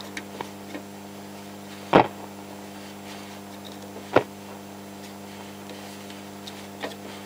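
AWA Radiola 467MA valve radio's speaker giving a steady mains hum with faint hiss as a knob is turned between stations, with two sharp crackles, about two seconds in and about four seconds in, and a few small ticks. The owner says the set has a bad hum and that its dirty controls crackle and need contact cleaning.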